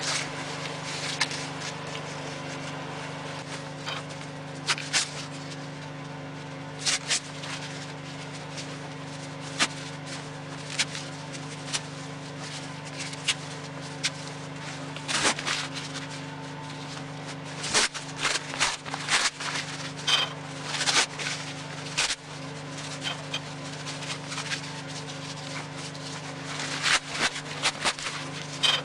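Newspaper being crumpled and laid on top of the firewood in a wood stove's firebox: irregular clusters of rustling and crackling paper with light clicks, over a steady low hum.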